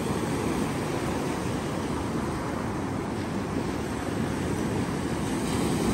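Sea surf breaking and washing onto the shore: a steady rushing noise.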